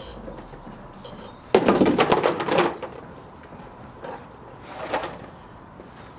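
A Kawasaki GPz900R front fork leg being pumped over a plastic drain bowl, old fork oil gushing and spluttering out in a loud burst about a second and a half in and a weaker one later. Faint bird chirps in the background.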